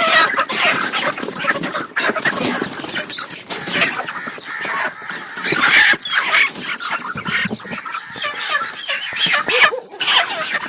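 Many broiler chickens clucking and squawking at once, a dense, unbroken jumble of short calls.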